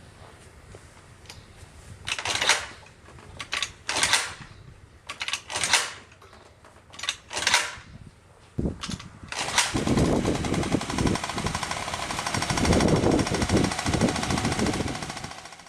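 Honda Squash 50cc scooter engine: five short loud bursts about every one and a half seconds, then from about nine seconds in a sustained loud run made of fast, even pulses.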